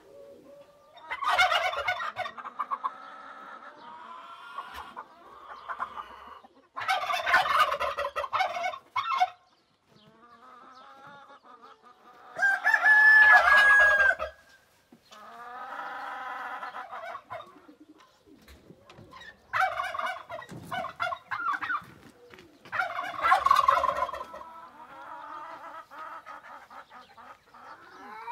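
Rooster crowing five times, each crow lasting about two seconds and spaced several seconds apart, with quieter chicken calls in between.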